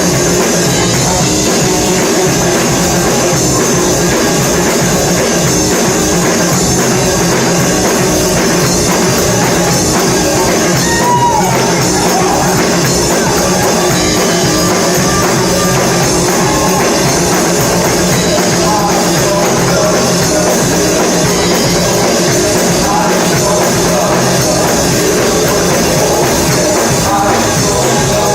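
Live church worship music at a steady loud level: a band with drum kit playing, with singing.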